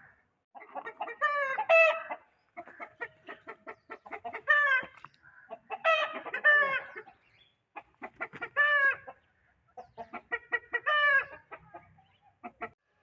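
Aseel chickens clucking in quick runs, broken by several loud, short pitched calls every couple of seconds.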